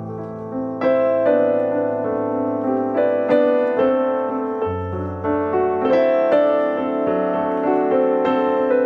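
Background piano music: a slow melody of sustained notes over held bass notes that change every few seconds.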